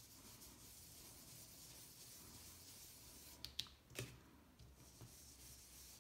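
Faint scrubbing of a foam ink-blending tool rubbed over card through a stencil. A little over halfway come three sharp taps as the tool is dabbed onto the ink pad, after which the soft rubbing resumes.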